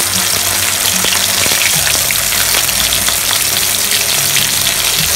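Wet cashew, onion, garlic and ginger paste frying in hot oil in a kadai, a steady loud sizzle and crackle just after the paste has gone into the oil over whole spices.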